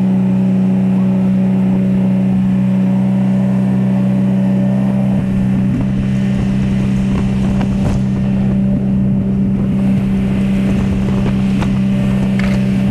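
Charter fishing boat's engine running steadily, a loud low drone that holds one pitch throughout, with a few faint clicks over it in the second half.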